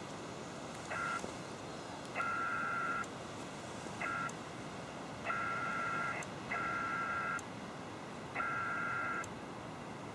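PACTOR digital radio data signal from the Yaesu FT-817ND transceiver: bursts of steady multi-tone warbling, some short and some nearly a second long, about every one to one and a half seconds, over steady receiver hiss. It is the back-and-forth of an automatic PACTOR link with the SCS modem, here carrying email.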